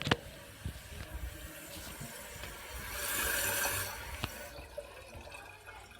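Water trickling faintly in a Kohler Cimarron toilet tank. A few light clicks come through, the loudest right at the start, and a brief louder hiss comes about three seconds in.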